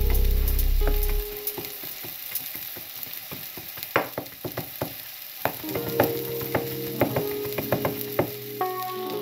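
Chef's knife mincing on a plastic cutting board: irregular sharp knocks of the blade striking the board, starting a little over a second in and running on to near the end.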